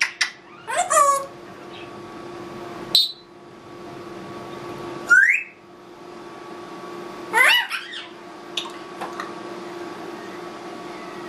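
Congo African grey parrot making a string of short mimicked sound effects with pauses between: a pulsing sweeping call about a second in, a sharp pop near three seconds, a rising whistle about five seconds in, a burst of quick up-and-down chirps around seven and a half seconds, then a few small clicks.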